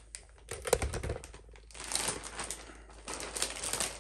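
Clear plastic bag around a crash cymbal crinkling and rustling in gloved hands as the stapled packaging is worked at, in irregular crackly bursts, with a dull knock about a second in.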